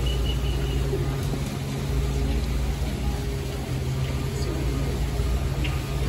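A steady low mechanical hum, like an engine or motor running.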